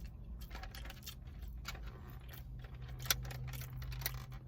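Eating sounds close to the microphone: chewing and small clicks of a utensil in a takeout food bowl, with one sharper click about three seconds in.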